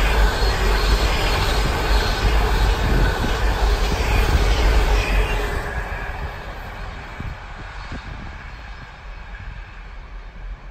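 Container wagons of a freight train rolling past on the rails, a steady rumble of wheels on track that fades from about halfway through as the last wagons draw away.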